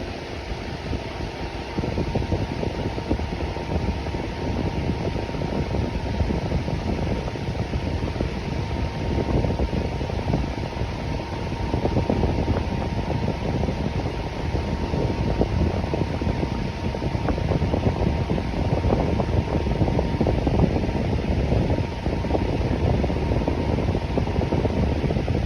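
Electric fan running steadily: a constant rush of air, heaviest in the low range, with a faint steady whine.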